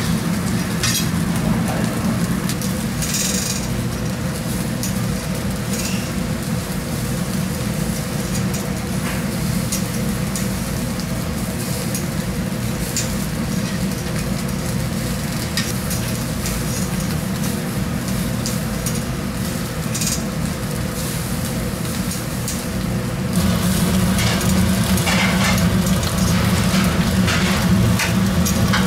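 Fish sizzling as it grills over a coal-briquette fire, with scattered crackles over a steady low hum. It gets louder a little past the two-thirds mark.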